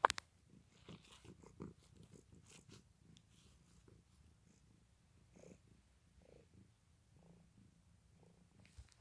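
Domestic cat purring faintly and steadily, a purr its owner calls weird. A brief knock sounds at the very start.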